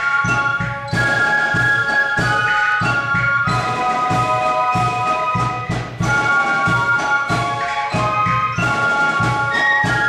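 A Spielmannszug fife band playing a tune in unison and harmony on transverse fifes, with a steady beat underneath.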